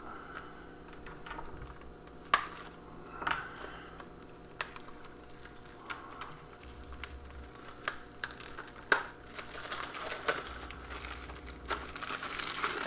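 Plastic shrink-wrap being picked at and peeled off a Blu-ray case: scattered sharp clicks and snaps, then steady crinkling of the plastic from about ten seconds in.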